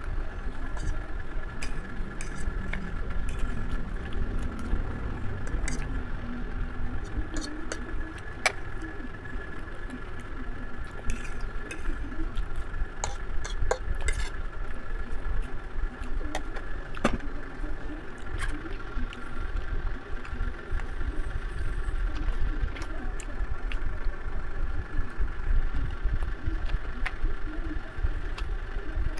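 A steady machine hum, a low rumble with a faint high whine above it, runs under scattered sharp clicks and taps of a fork against a plate while someone eats.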